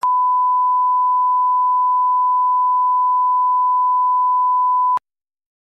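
Steady 1 kHz line-up test tone, the single pure beep that goes with colour bars, held for about five seconds and cut off abruptly with a click.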